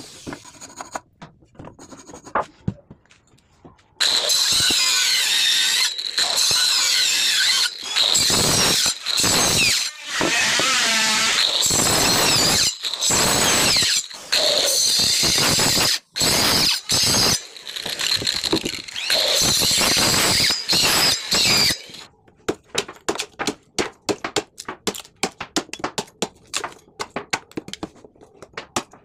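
Power saw cutting wood for a door tenon. After a few seconds of faint taps it runs loud in several cuts separated by short pauses, with a high, steady whine. From about 22 seconds in come rapid light taps as the waste between the saw kerfs is knocked out.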